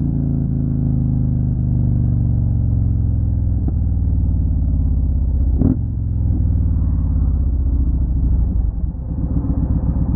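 Motorcycle engine from an onboard camera, running steadily and easing off, its pitch slowly falling as the bike slows. Near the end it drops to a lower, choppier beat. A few brief knocks come through, the strongest a little past halfway.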